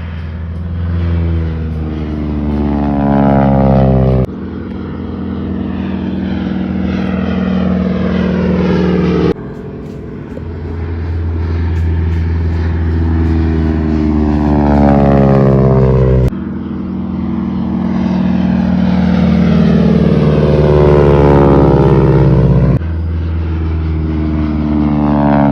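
Helicopters flying low past one after another, the pitch of their engines and rotors sliding down as each goes by. The sound cuts off abruptly and restarts several times.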